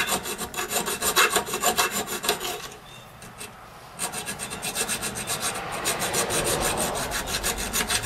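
Hand file rasping back and forth across a metal workpiece clamped in a vise, flattening a seat in it. It runs as quick repeated strokes, stops about two and a half seconds in, then starts again about a second later, a little softer.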